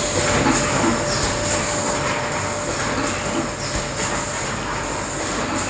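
A running PET bottle production line: the air conveyor's blower and the machinery around it make a steady mechanical hum and rush of air. A faint steady whine sits under it, and brief hissing pulses come about once a second.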